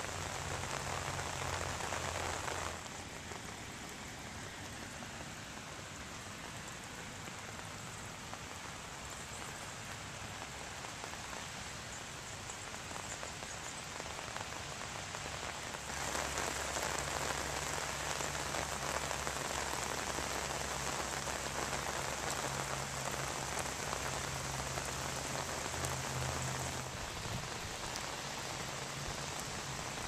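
Steady rain falling on asphalt pavement, an even hiss of drops. It shifts in level abruptly about three seconds in and again about sixteen seconds in, with a low steady hum under it in parts.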